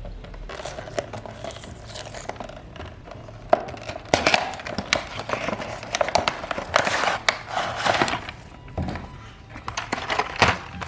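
Packaging crinkling and rustling as it is handled and opened, with many sharp clicks and taps, louder from about three and a half seconds in.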